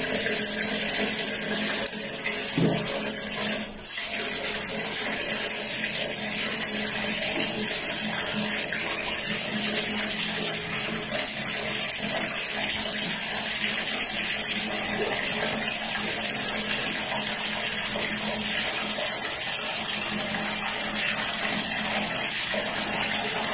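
Water running steadily from a tap into a bucket, a continuous rushing hiss, with a brief dip about four seconds in.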